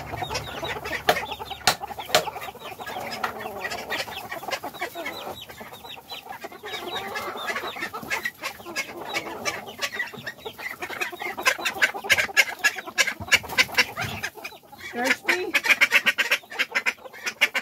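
A flock of silkie chickens clucking and chattering, with many quick sharp clicks and taps that grow densest in the last several seconds.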